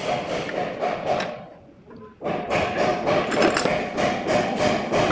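Repeated knocking and clinking of tools on metal motor parts, in two spells with a short pause about one and a half seconds in.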